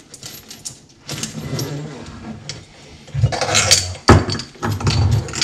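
Metal kitchen tap and its flexible braided steel supply hoses handled and shifted about on a wooden worktop: rustling, rattling and clinking, busier from about three seconds in, with a sharp knock about four seconds in.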